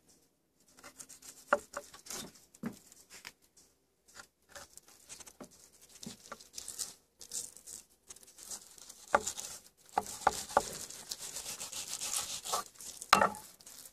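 Fillet knife being worked between a walleye fillet's skin and flesh, scraping on a wooden cutting board, with scattered light clicks and taps of the blade. The scraping grows steadier from about ten seconds in.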